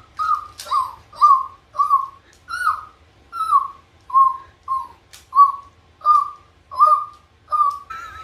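Young child making a run of about thirteen short, high-pitched squeaky notes by mouth, roughly one and a half a second, each sliding briefly in pitch.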